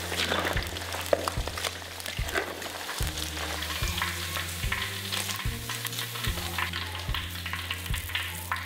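Pieces of fish deep-frying in hot oil in a wok: a steady crackling sizzle.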